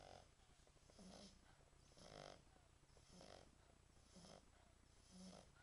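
A French Bulldog snoring faintly in its sleep: short snores come about once a second in a steady rhythm, the sound of air through the breed's short, flat-faced airway.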